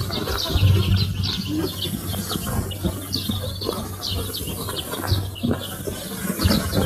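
Small birds chirping and twittering in quick high notes, several a second, over a low steady hum and hiss.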